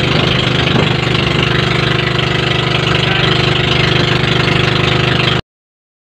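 Outrigger boat's engine running steadily with a fast, even pulse and a hiss over it. It cuts off abruptly about five and a half seconds in.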